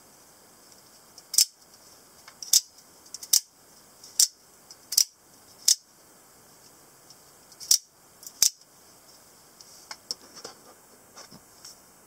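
Spring-loaded out-the-front automatic knife (Scarab D/E) snapping its blade out and back with its thumb slider: eight sharp metallic clicks, spaced about a second apart with a longer pause before the last two. Fainter clicks and handling noise follow near the end.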